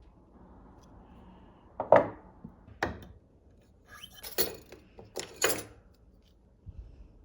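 Sharp clicks and knocks of metal tools and wire as twisted silver wire is bent into a ring with ring pliers, about five knocks with the loudest about two seconds in.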